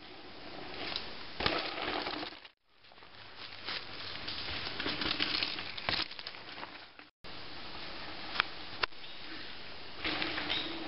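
Mountain bikes riding a dirt and rock trail: the crunch of tyres on dirt and leaves, with sharp clicks and knocks from landings and rattling parts. The sound cuts out twice between clips.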